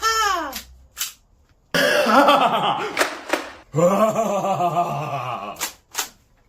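People's wordless yells and cries whose pitch bends up and down, with several sharp clicks or pops between them.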